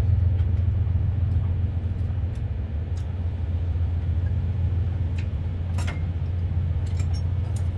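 Steady low rumble, with a few light clicks of chopsticks and a spoon against rice bowls, the sharpest about six seconds in.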